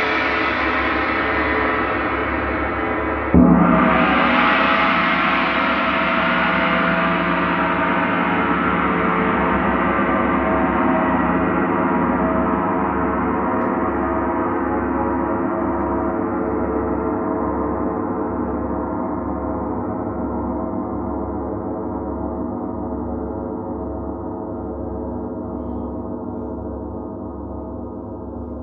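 Large Paiste gong ringing from an earlier stroke, then struck once about three seconds in. A dense wash of overtones rises after the hit and fades slowly over the next twenty-odd seconds, with a slow throb in the low hum.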